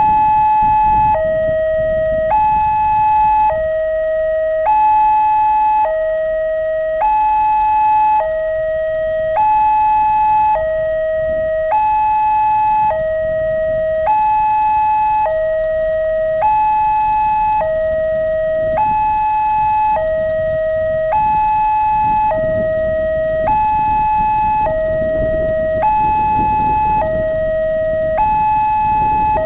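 Railway level-crossing warning alarm sounding from the loudspeaker on the crossing pole while the barrier is down. It is a loud electronic two-tone signal, a high note and a low note alternating, each held just over a second, repeating evenly. It warns that a train is approaching.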